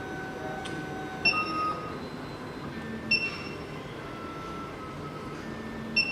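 Soft background music: held notes that shift pitch every second or two, with a bright chime-like note three times, about two to three seconds apart.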